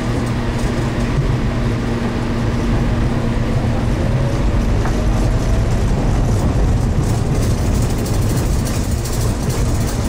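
Kansai Airport terminal shuttle train running: a steady rumble with a faint hum that fades out about halfway through.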